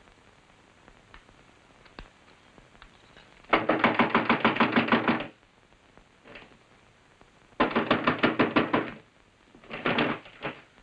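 Rapid knocking on wood from inside a wooden feed bin, in three bursts: a long one a few seconds in, a shorter one about two seconds later, and a brief one near the end.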